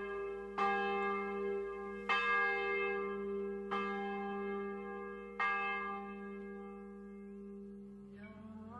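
A bell struck four times, about a second and a half apart, each stroke ringing on and slowly fading. Near the end, chant-like music begins.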